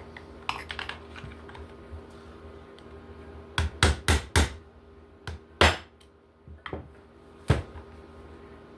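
Sharp metal clicks and knocks from a Stevens 320 pump shotgun being handled and taken apart: a few light clicks, a quick run of four loud ones near the middle, then two more single knocks.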